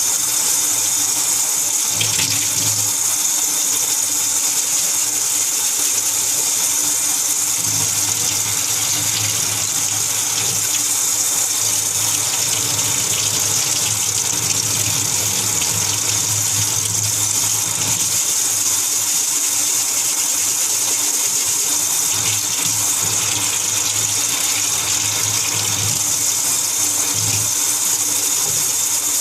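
Water running steadily from a tap into a sink, a continuous even hiss.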